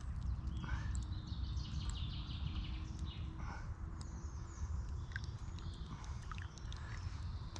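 Small twig fire in a Firebox stove crackling with a few sharp pops, over a steady low rumble and birdsong.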